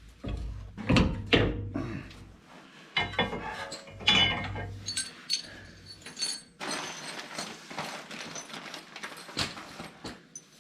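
Metal hand tools and steel steering parts clinking and knocking together during work on a Jeep's steering linkage, with several sharp clinks and knocks in the first half.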